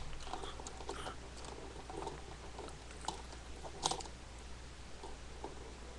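Faint clicks and rustles of small toys being handled close to the microphone, with one louder click about four seconds in.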